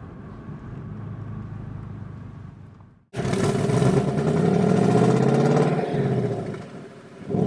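Ford Mustang GT's 5.0-litre Coyote V8 running quietly at first, then, after a sudden cut about three seconds in, loud under acceleration with its pitch climbing. It eases off near the end and comes back loud.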